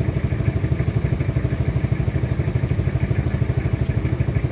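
Vehicle engine idling close by, a steady, rapid, even pulse.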